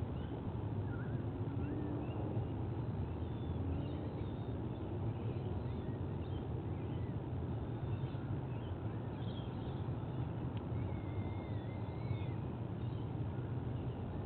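Steady low background rumble with faint, scattered chirps and short whistles of birds.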